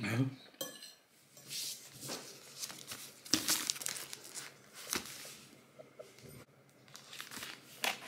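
Plastic mailing bag crinkling as a parcel is handled and opened on a table, with a few light knocks and clinks among the rustling.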